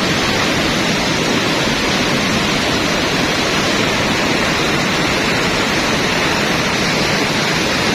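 Steady rush of river rapids: an even, unbroken hiss of fast-flowing water.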